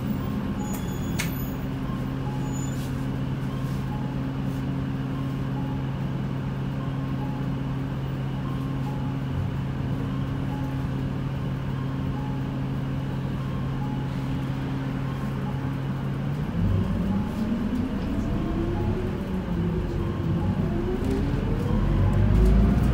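Isuzu Erga city bus heard from inside, its diesel engine humming steadily at idle. About 16 seconds in the bus pulls away: the engine note rises, drops back at a gear change and rises again as it speeds up, growing louder.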